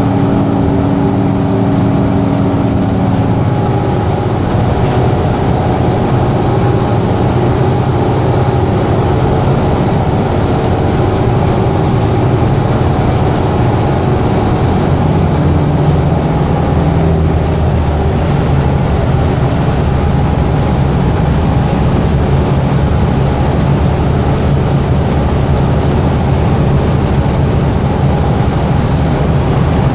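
Inside a moving Gillig Advantage hybrid transit bus: steady drivetrain hum and road noise with the air conditioning running, and a low humming tone that shifts in pitch about halfway through.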